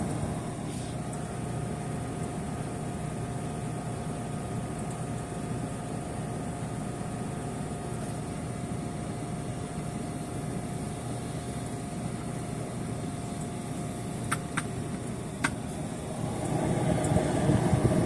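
Reach-in cooler's condensing unit running steadily, the compressor and condenser fan humming with a held tone, while the system, low on R134a, is being topped up with refrigerant. A few sharp clicks come about fourteen to fifteen seconds in, and the running gets louder near the end.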